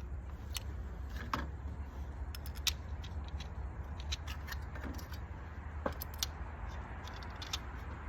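Scattered light clicks and clinks of hand tools and parts being handled, over a steady low hum.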